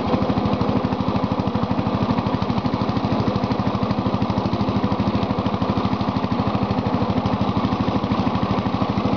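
Lawn tractor engine running steadily at an even speed, its exhaust beat pulsing evenly with no change in pitch.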